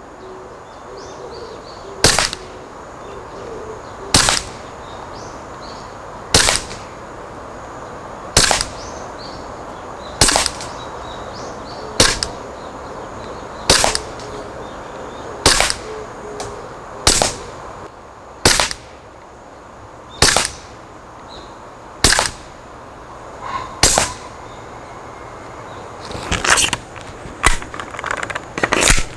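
Tokyo Marui Glock 17 Gen4 gas blowback airsoft pistol firing single aimed shots, each a sharp crack with the slide cycling, about one every two seconds, about a dozen in all. Near the end come a run of weaker, irregular reports, as the magazine grows very cold from continuous firing and the gas loses pressure.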